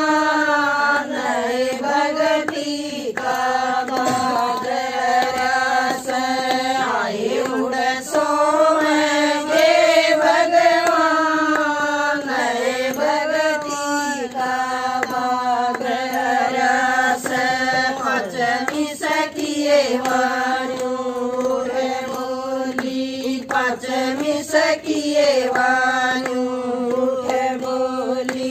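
Women singing a Haryanvi devotional bhajan together in a steady, chant-like melody, with hand claps marking the beat.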